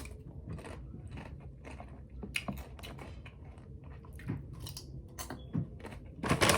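A person chewing and crunching tortilla chips with queso, a run of scattered small crisp crunches, with a louder burst of noise at the very end.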